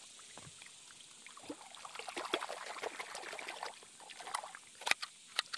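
Muddy puddle water splashing and trickling as a hand works a pistol around under the surface, busiest in the middle, with two sharp clicks near the end.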